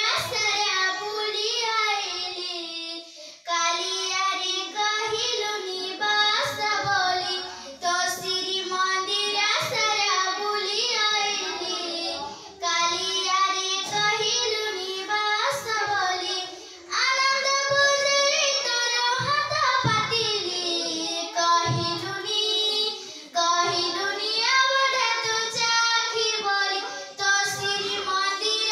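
A young girl singing an Odia-language song solo, in long held phrases separated by short breaths.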